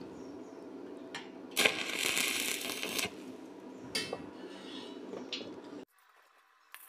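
Steel C-clamp and angle-iron frame being handled. There is a sharp metallic click, then a rasping, crackling noise about a second and a half long, then another click, and the sound cuts off abruptly near the end.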